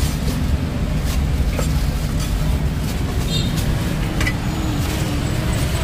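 Steady low rumble of street traffic, with scattered sharp knocks of a cleaver chopping roast meat on a chopping block.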